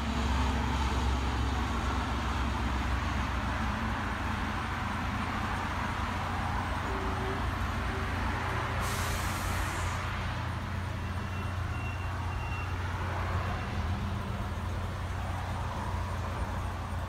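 Steady low engine rumble of a vehicle with outdoor noise, and a short high hiss about nine seconds in.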